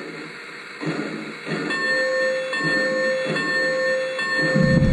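Lionel Polar Express toy steam locomotive's sound system playing rhythmic steam chuffing, with a steady whistle tone joining about two seconds in. Near the end a loud low rumble sets in as the train's wheels run over the track close by.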